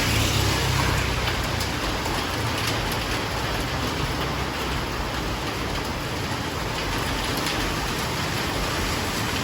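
Steady rain falling, an even hiss of water with faint drop ticks. A low rumble lies under it in the first second or so.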